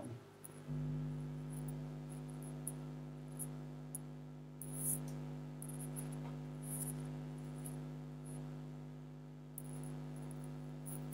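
Steady low electrical hum that comes on about a second in and holds, with faint, short, high clicks scattered over it.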